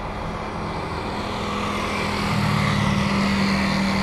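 An airliner's engines running as it passes, the noise swelling over the first two and a half seconds and then holding steady, with a low hum beneath.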